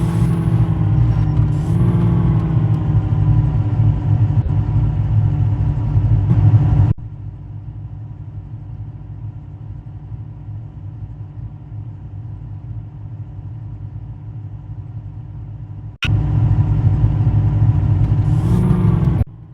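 Jeep engine running under load, its pitch rising and falling as it revs. About seven seconds in it drops abruptly to a quieter, steady rumble, comes back loud at about sixteen seconds, and drops again just before the end.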